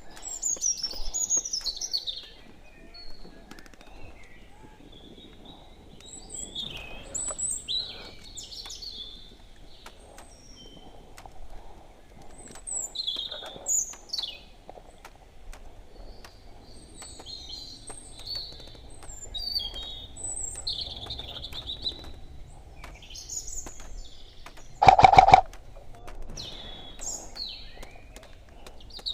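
Small birds chirping and twittering steadily. Near the end comes a single brief burst of rapid shots, the loudest sound, typical of an airsoft replica firing on full auto.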